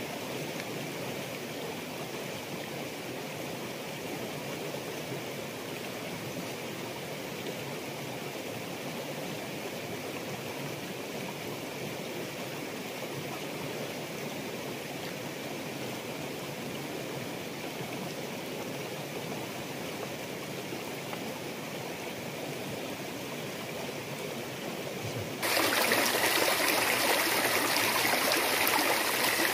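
Steady rush of a shallow rocky stream. About 25 seconds in it switches abruptly to a louder, closer rush of water running over stones.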